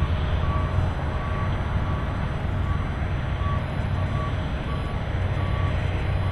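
Heavy diesel machinery running with a steady deep rumble: an asphalt cold-milling machine at work, conveying milled asphalt into a tipper truck. A vehicle's reversing beeper sounds in short, repeated beeps.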